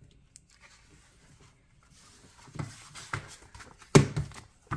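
Paper rustling as the pages of a plastic model kit's instruction booklet are handled and the booklet is closed, with a sharp thump of the booklet about four seconds in.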